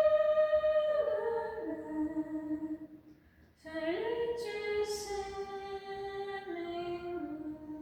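A woman's voice singing long held notes without words, each phrase stepping down in pitch, in two phrases with a short break about three seconds in.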